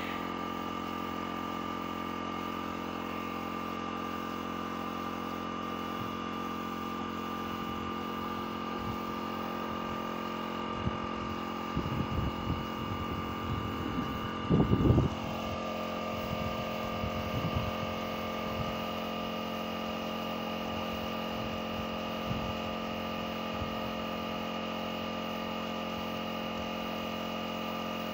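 Small portable air compressor running steadily with a constant hum, supplying air to a paint spray gun. A few low thumps come around the middle, the loudest about halfway, and the compressor's tone shifts slightly just after.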